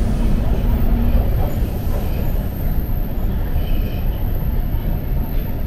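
TTC Line 2 subway train running: a steady, loud low rumble of wheels on rail and running gear.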